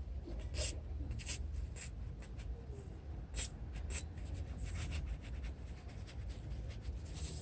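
Scratchy rubbing and a series of sharp clicks from the fuel flap lock being handled while it is oiled, over a low steady hum.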